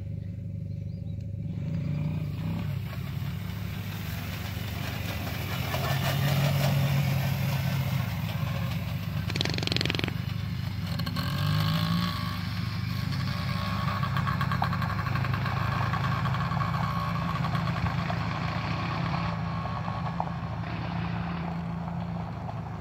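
Mini bike engine running, its pitch rising and falling as it is ridden, with a brief rush of noise about ten seconds in.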